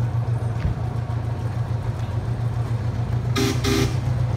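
Miniature ride-on train's horn giving two short toots about three and a half seconds in, over a steady low hum.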